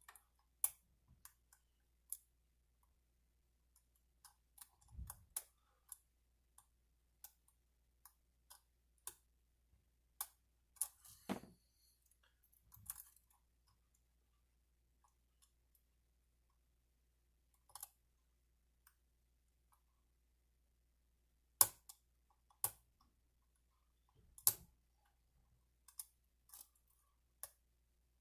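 Small, irregular metallic clicks of a hook pick and tensioner working the pins inside a lock cylinder during picking, faint, with a few sharper clicks standing out.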